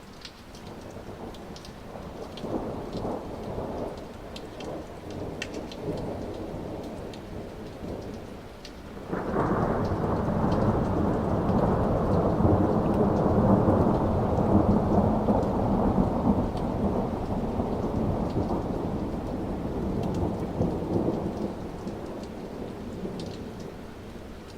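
Thunder from a storm overhead: a low rumble builds over the first few seconds, then a sudden loud peal breaks about nine seconds in and rolls on for more than ten seconds before easing. Rain patters throughout.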